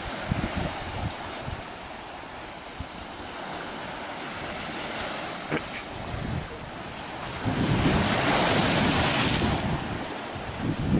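Sea surf breaking and washing up a sandy beach, with wind buffeting the microphone. A louder wave washes in about eight seconds in.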